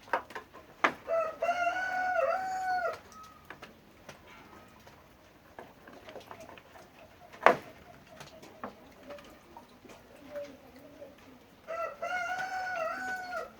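A rooster crows twice, each crow about two seconds long and some ten seconds apart. A single sharp knock, the loudest sound, comes midway between them.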